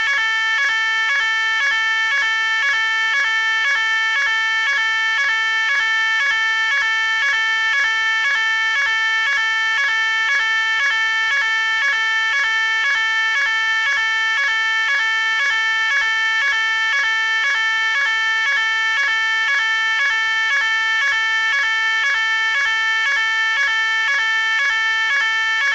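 Electronic fire alarm sounder, sounding a continuous pulsing tone that keeps alternating evenly and quickly between high pitches.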